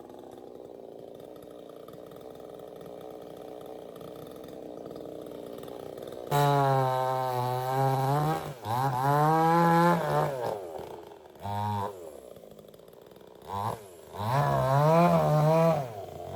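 Two-stroke chainsaw idling faintly, then revved hard in several bursts of one to two seconds from about six seconds in, its pitch dipping and recovering as it cuts tree limbs.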